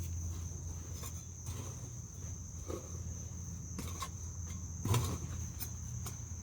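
A shovel moving dirt over wire mesh on a coop floor: a few scattered scrapes and knocks, the loudest about five seconds in, over a steady high-pitched whine and a low hum.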